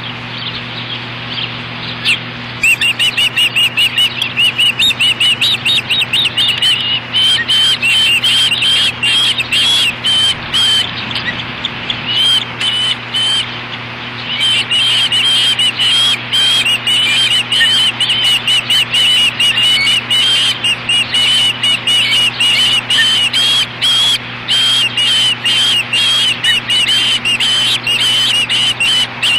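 Ospreys at the nest calling in long runs of rapid, high, piping chirps, many to the second, that start a couple of seconds in and carry on almost without pause, thinning briefly around the middle.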